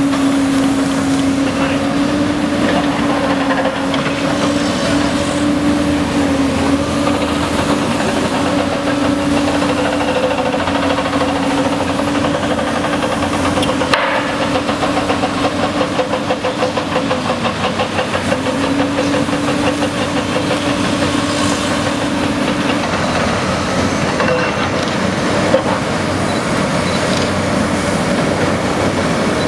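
Heavy hydraulic excavators digging at a foundation, led by a Cat 385BL: big diesel engines running steadily under load with a constant drone. The drone dips briefly a little past halfway and fades out in the later part.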